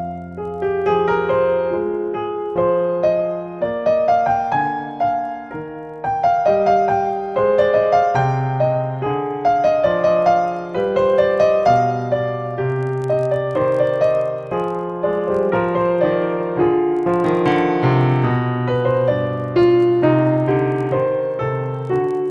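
Background piano music: a gentle melody of struck notes over sustained low chords.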